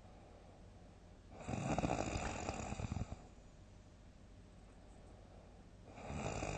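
A person snoring loudly. One fluttering snore comes about a second and a half in and lasts about a second and a half. The next starts near the end.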